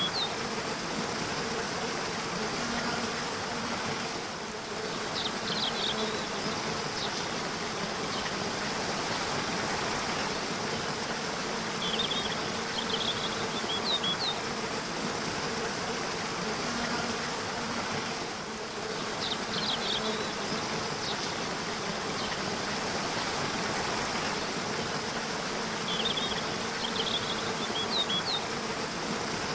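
Waterfall rushing steadily, with a small bird singing short bursts of high chirps about every seven seconds.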